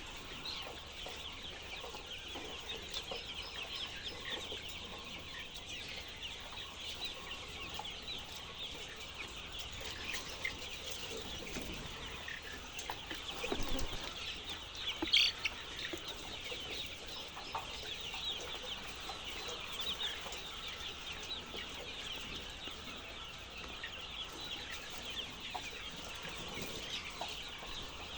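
A large flock of chickens calling continuously, a dense chatter of many short high calls overlapping, with one louder call about fifteen seconds in.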